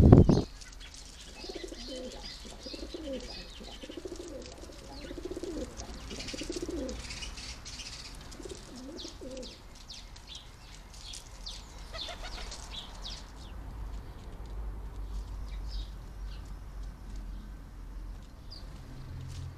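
A pigeon cooing in repeated low phrases through the first half, while small songbirds chirp in short high notes.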